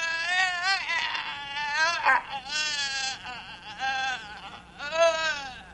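A performer's high-pitched, quavering wails in a shrill possessed-creature voice, broken into about six cries that wobble up and down in pitch.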